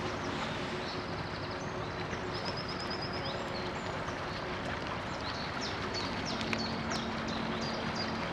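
Steady drone and water wash of a loaded inland cargo ship's diesel engine passing close by, with small birds calling over it in short, quick chirps and a fast trill about two and a half seconds in.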